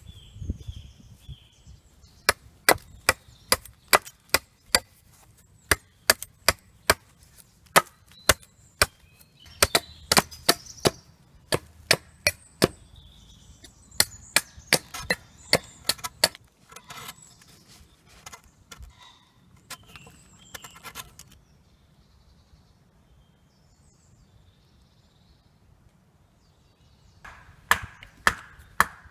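Wood being chopped: a run of sharp strokes, about two to three a second, which stops about two-thirds of the way through and starts again near the end.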